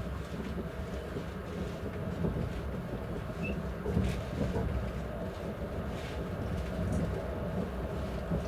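Steady rumble of an ES1P Lastochka train running at about 116 km/h, hauled by a TEP70BS diesel locomotive. Faint knocks of the wheels over the rails come about four and six seconds in.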